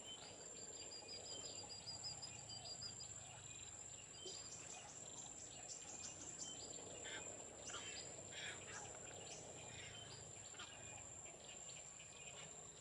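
Faint wetland ambience: an insect's steady high-pitched trill, with a quick high bird trill in the first few seconds and many short bird chirps from about four seconds in.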